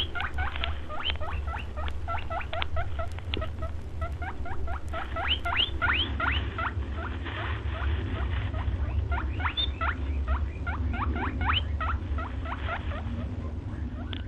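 A rapid run of short, high, rising chirps or squeaks, several a second, over a steady low hum.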